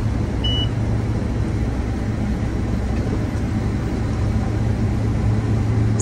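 New Holland combine running while harvesting corn, heard from inside the cab: a steady low hum and rumble of the engine and threshing machinery. A single short high beep sounds about half a second in.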